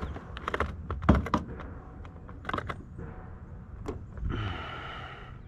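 Handling noise in a jon boat: several sharp clicks and knocks, the loudest about a second in, then a short whir lasting about a second near the end.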